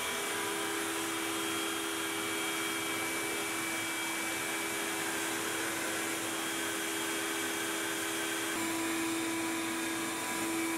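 Makita router spinning on a Onefinity CNC machine, a steady high hum over the rushing air of the dust collection hose drawing through it.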